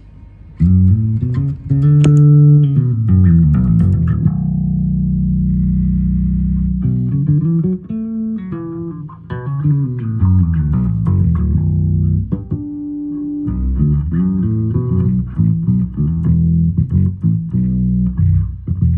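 Electric bass guitar played through a JOYO American Sound JF-14 amp-simulator pedal and a Boss GT-1B bass multi-effects pedal. It plays quick runs of notes going up and down, with two long held low notes.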